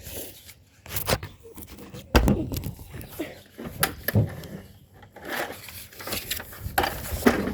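Handling noise: a few sharp knocks and clicks with rustling, from the pool cleaner's parts and its paper manual being handled.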